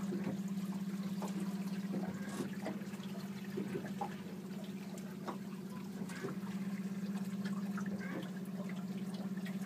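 Boat's outboard motor idling with a steady low hum, easing a little in the middle, among a few light clicks and knocks.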